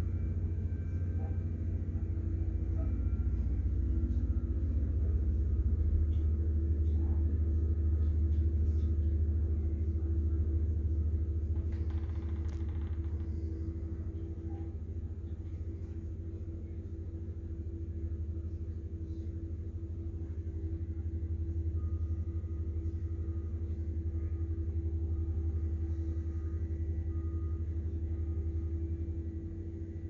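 Diesel engines of asphalt paving machines, tandem drum rollers and a paver, running steadily as a low rumble with a steady hum, rising and falling in loudness. A brief noise cuts across it about twelve seconds in.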